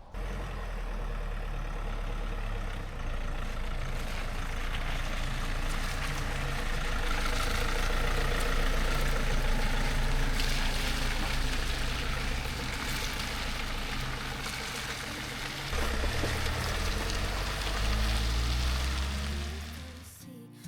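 Camper van driving: a steady low engine hum with road noise that grows louder through the middle and dies away near the end.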